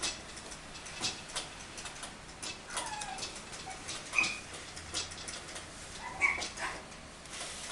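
Long-coat Chihuahua puppy giving a few short, high whimpers and squeaks, one of them falling in pitch about three seconds in, among scattered light clicks and taps.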